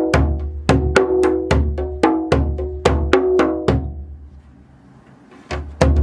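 Djembe played by hand in a steady groove of bass strokes and slaps with soft tones filling every eighth note, about three strokes a second. The groove stops about four seconds in and rings out briefly, and a new groove starts near the end.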